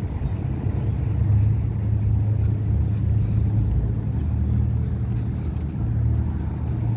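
A motor vehicle's engine running steadily with a deep, even hum.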